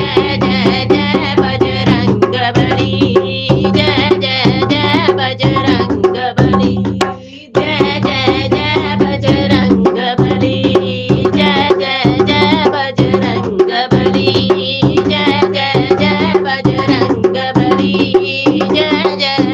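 Instrumental interlude of a Hindi devotional bhajan: tabla and drums playing a fast rhythm over a steady drone, with a short break about seven and a half seconds in.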